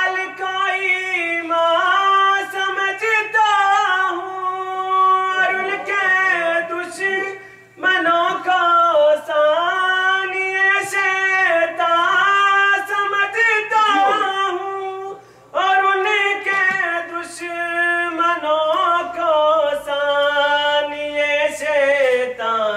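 A man singing an Urdu manqabat unaccompanied into a microphone: three long phrases of drawn-out, wavering held notes, each broken off by a short pause for breath.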